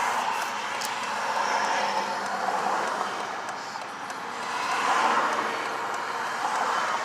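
Rushing noise of passing vehicles, swelling about five seconds in.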